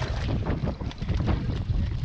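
Wind buffeting the microphone in a heavy low rumble, with water splashing and sloshing as a fish is gaffed and hauled up out of the sea beside the boat.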